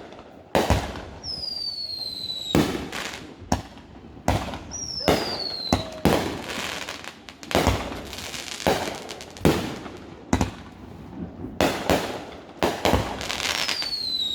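Fireworks going off in quick succession: a dense run of sharp bangs with crackling between them. Three whistles glide down in pitch, one near 2 s, one around 5 s and one near the end.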